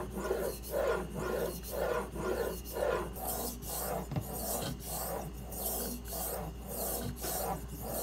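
Kitchen knife in a Hapstone T1 clamp-on angle guide being stroked back and forth on a wet Suehiro SKG-27 1000/3000 combination whetstone: a rhythmic grinding rasp of steel on stone at about two strokes a second. After about three seconds the strokes turn brighter and more hissing.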